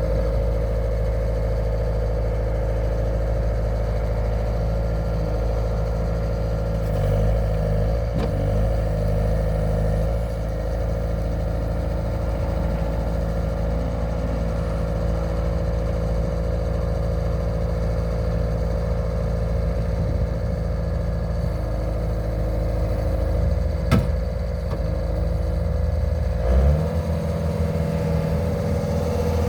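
Bobcat S220 skid steer's diesel engine running steadily with a constant whine, its speed changing about seven seconds in and again near the end. A single sharp knock comes about 24 seconds in.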